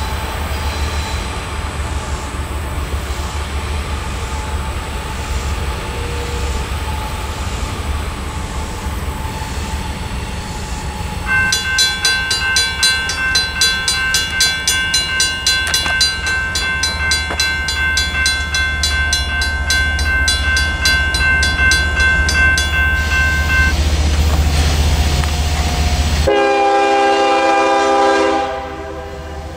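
Railroad crossing bells, a Safetran mechanical bell and a General Signals electronic bell, start ringing about a third of the way in with rapid strikes. They stop a few seconds before the gates are down; the uploader describes the mechanical bell as sounding weak and struggling, cutting out early as the gates lower. Near the end the horn of an approaching Norfolk Southern freight locomotive blows, with a brief break.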